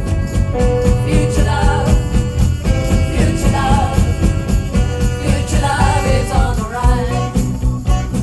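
Live band playing a song: a singing voice carrying the melody over a steady beat of drums and bass.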